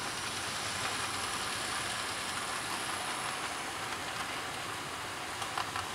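OO gauge model trains running on the layout's track: a steady whirr of small electric motors and wheels on rails, with a few faint clicks near the end.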